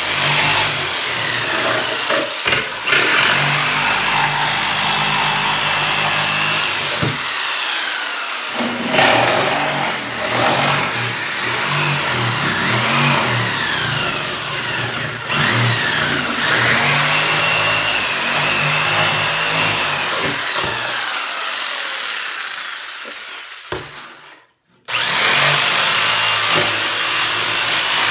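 Ryobi corded jigsaw cutting through plywood. Its motor pitch sags and rises as the blade loads and frees in the cut. Near the end the saw winds down and stops for about a second, then starts cutting again.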